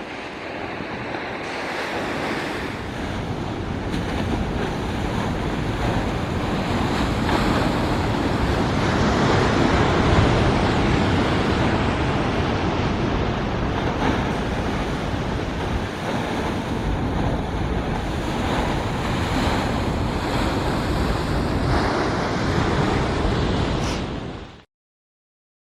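Ocean surf washing with wind buffeting the microphone, a steady rushing noise that swells over the first few seconds and then holds before cutting off suddenly near the end.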